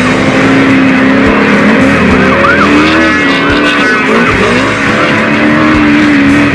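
Off-road race car engine revving and running hard, its pitch wavering and bending with the throttle, under background guitar music.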